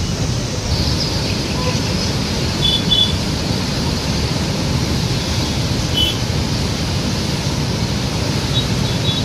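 Krishna River floodwater rushing and churning over a weir, a steady noise of turbulent water, with a few short high chirps.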